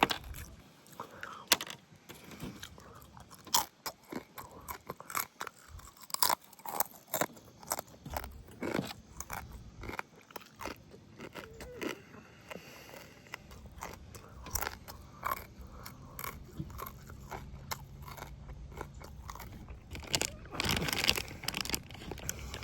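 A person chewing and biting into rotisserie chicken, with irregular crunches and mouth clicks.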